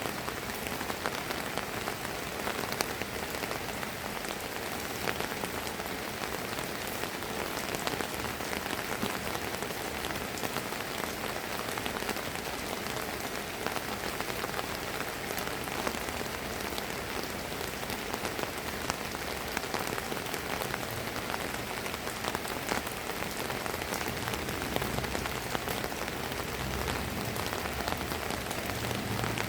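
Steady drizzling rain pattering on a surface, with many small drops ticking through a constant hiss. A faint low rumble builds up near the end.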